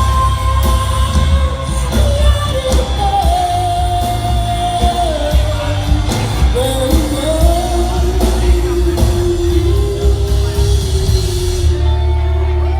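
A live band playing a pop ballad, a singer holding long, gliding notes over drums and bass. Near the end the drums drop out, leaving a held low chord.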